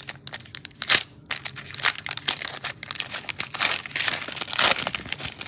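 Foil trading-card pack crinkling and crackling as it is handled and opened by hand, with several sharper snaps among the crinkles.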